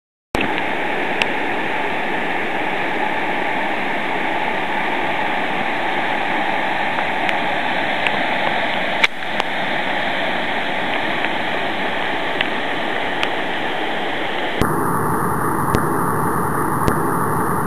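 Steady rush of water pouring over a river waterfall. The tone of the rush changes abruptly about three-quarters of the way through.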